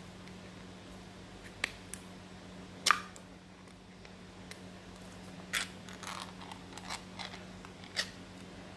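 Sharp clicks and taps from handling a California Scents air-freshener tin and its hinged plastic lid, about eight of them scattered over several seconds, the loudest about three seconds in.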